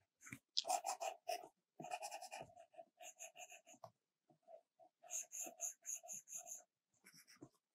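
Stylus strokes scratching on an iPad Pro screen while drawing: quick short strokes in runs, about five a second at their fastest, broken by brief pauses.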